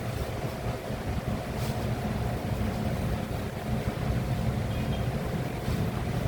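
Air conditioner running: a steady low hum and rumble with a faint constant whine over it.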